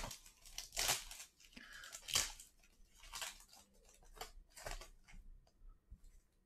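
Foil wrapper of a 2020 Select Football trading-card pack being torn open and crinkled: a few short bursts of crackling that die down about five seconds in.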